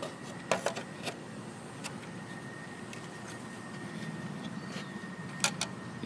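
A few sharp plastic clicks and taps from the gate keypad's housing being handled: a cluster about half a second to a second in and a quick pair near the end, over a steady low background hum.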